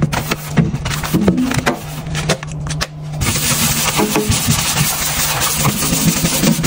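Brush bristles scrubbing a soapy stainless-steel sink basin: quick back-and-forth rubbing with scratchy clicks at first, settling into a steadier scrubbing hiss from about halfway, over a steady low hum.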